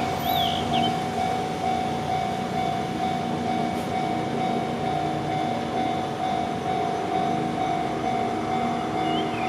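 Railway level-crossing warning bell ringing in a steady, rapidly repeated ding while a train approaches. A small bird chirps briefly near the start.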